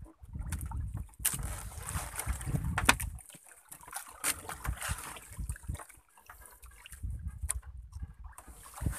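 Water sloshing and trickling around a small outrigger boat, with a few sharp clicks and knocks as a handline hook is worked out of a caught dorado's mouth; the loudest click comes about three seconds in.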